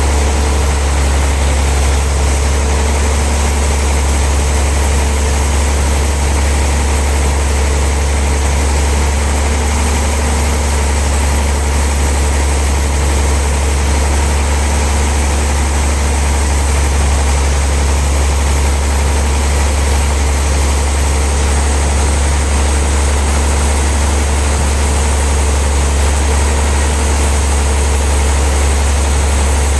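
Sawmill machinery running steadily: an even, deep engine hum with no change in load and no impacts.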